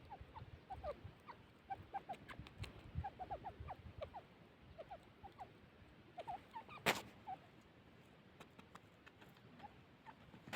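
Grey francolins giving faint, short chirping calls, several a second in places. Scattered light clicks run through it, with one sharp click about seven seconds in.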